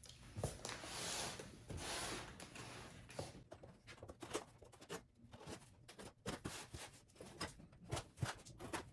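Packaging being opened and handled: two drawn-out tearing or scraping swishes in the first three seconds, then a run of light clicks, taps and rustles as the box and its contents are moved about.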